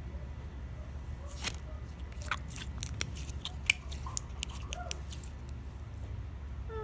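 Thick slime being pulled and scraped out of a plastic container: scattered sticky clicks and crackles, with one louder snap a little past halfway, over a steady low hum.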